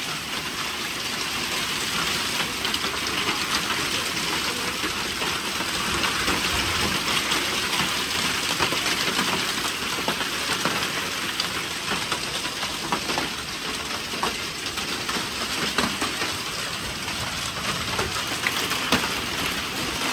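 Heavy downpour with hail: a steady dense hiss of rain pouring onto the ground, with many small sharp taps of hailstones and drops striking throughout.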